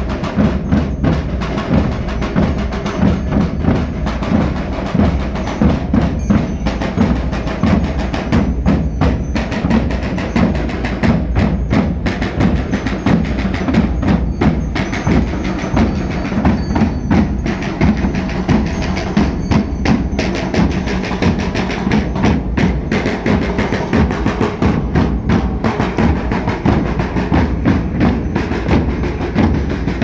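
A Portuguese drum group of large bass drums (bombos) and snare drums played together, beaten with mallets and sticks in a continuous, dense rhythm.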